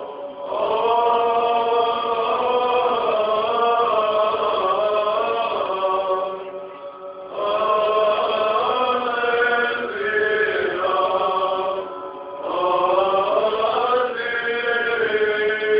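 Male voices chanting Orthodox Byzantine chant in long, held phrases, with two brief pauses for breath about seven and twelve seconds in.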